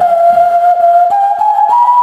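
A flute-like melody of single pure held notes, stepping up in pitch about a second in and again near the end, with faint soft clicks beneath.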